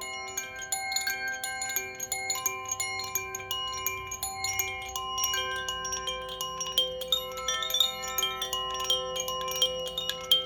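Koshi chime ringing continuously: a cluster of bell-like tones struck irregularly several times a second, each ringing on and overlapping the others.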